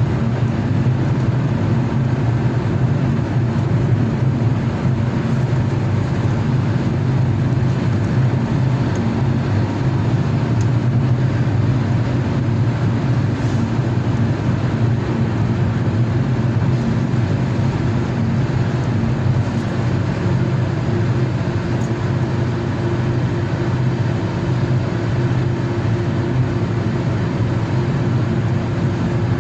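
Steady low rumble of a car driving, road and engine noise holding at an even level with no pass-by swell.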